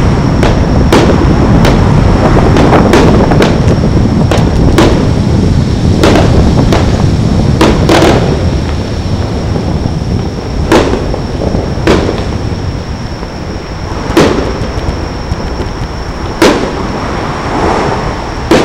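Distant aerial fireworks going off in an irregular string of sharp bangs, each trailing a rolling echo, over a steady low rumble. The bangs come more sparsely but stand out more sharply in the second half.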